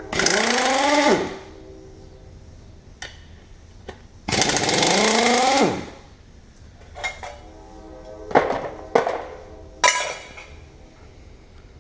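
Impact wrench hammering in two bursts of about a second and a half each, its pitch rising as it spins up, then several short blips in the second half, loosening bolts on a Chevy engine being torn down.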